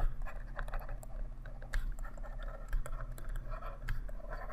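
Stylus tapping and scratching on a tablet screen while handwriting, a string of light irregular clicks, over a steady low electrical hum.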